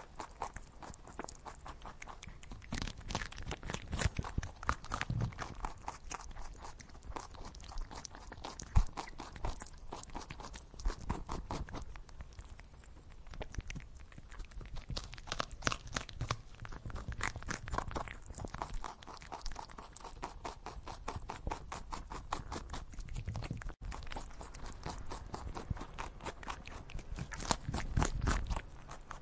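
A hare chewing grass: rapid, continuous crunching clicks.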